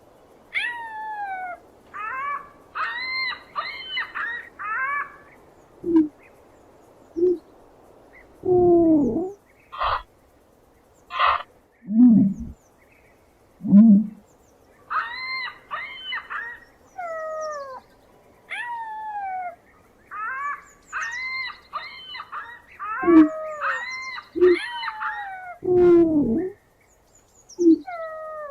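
Birds calling: repeated falling calls and bursts of quick, closely stacked notes, with short low hoots scattered between them.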